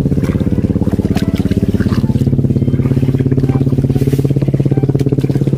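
Small boat engine running steadily with an even, rapid putter, its pitch wavering slightly, as the fishing raft is moved to a new spot on the water.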